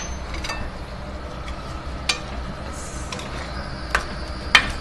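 Beef keema frying in oil in a stainless steel pot, with a steady sizzle. A spoon clinks against the pot several times, the loudest near the end.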